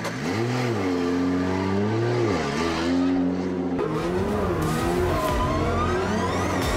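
Nissan 200SX drift car's engine revving, its pitch swelling up and down a few times. About four seconds in it turns rougher, with a rising whine near the end as it accelerates.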